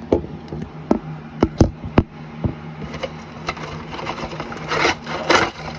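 Action-figure packaging being handled: a string of sharp clicks and knocks, then two louder rustling, crinkling stretches near the end, over a steady low hum.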